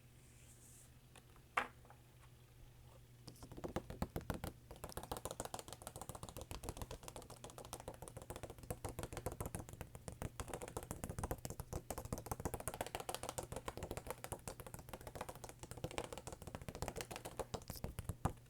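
Rapid, dense fingernail tapping and clicking on jumbo Pokémon cards, ASMR-style. It starts with one sharp click about a second and a half in and becomes a steady flurry of fast taps from about three seconds in.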